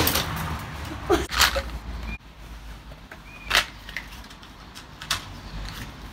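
Scattered sharp clicks and knocks, a few of them loud, over a low background rumble that drops away suddenly about two seconds in.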